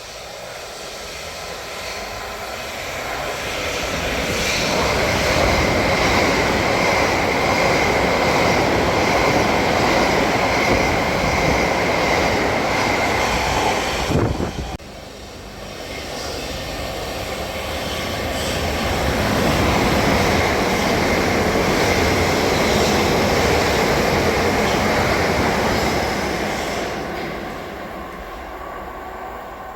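Electric multiple unit trains passing on the line: a rush of wheels on rail and running gear that builds up and holds with a steady high whine, cuts off abruptly about halfway, then a second pass builds, holds and fades near the end.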